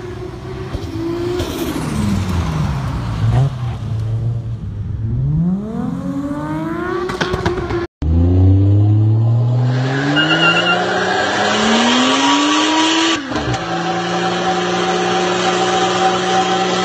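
Toyota JZ-series straight-six engine revving, its pitch dropping and then climbing again. After a sudden cut about eight seconds in, a car's engine climbs through the revs and is held high in a burnout, with tyre squeal.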